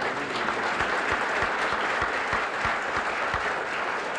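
Audience applauding, a large crowd clapping steadily.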